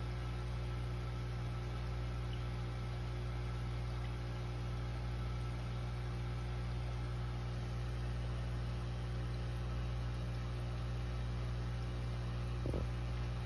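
Steady low hum of running aquarium equipment, with one faint tap near the end.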